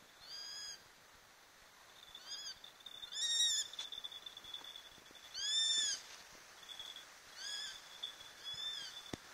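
Eurasian sparrowhawk calling: six drawn-out calls, each rising then falling in pitch, spaced one to two seconds apart. The loudest two come about three and five and a half seconds in.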